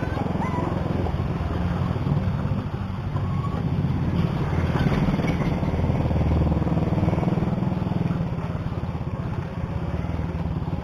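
Motorcycle engine running steadily at low speed under way, heard close up from the rider's seat.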